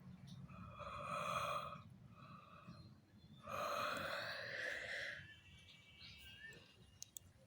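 A person yawning aloud: two long, drawn-out breaths with voice in them, the second starting about halfway through.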